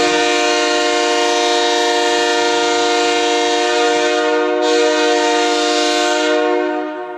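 Nathan K3H three-chime train horn sounding bells 1, 2 and 3 together in one long, steady chord, then fading out near the end.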